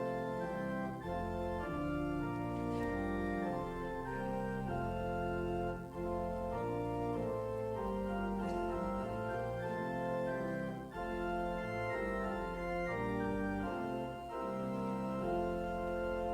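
Church organ playing slow sustained chords that change about once a second.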